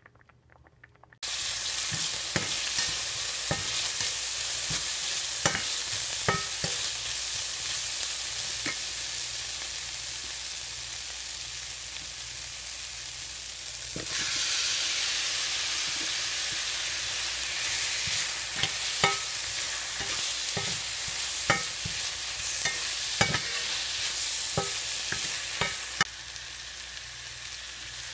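Diced onions sizzling in a hot pan, with a slotted metal spatula stirring and scraping, giving many sharp clicks of metal on the pan. The sizzle starts about a second in and gets louder about halfway through as the poached eggs are tipped into the pan.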